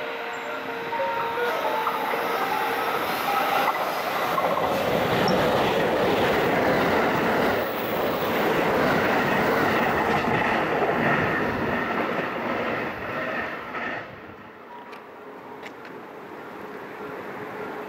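JR West 681 series electric limited express train running through a station at speed: a steady rush of wheel and rail noise that builds over the first couple of seconds, holds while the cars pass close by, and drops off sharply about fourteen seconds in as the last car clears.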